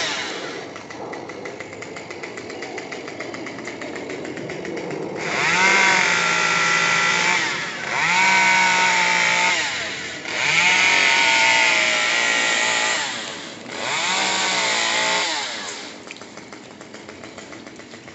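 Two-stroke chainsaw revved up to full throttle in four bursts of two to three seconds each, its pitch climbing at the start of each burst and dropping back to idle between them, as in making cuts.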